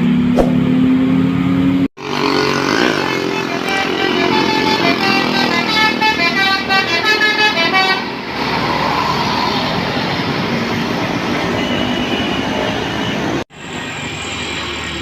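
Bus 'telolet' Basuri melody horn playing a quick run of short notes stepping up and down for several seconds, over bus engine and street noise. The sound breaks off abruptly twice where clips are spliced together.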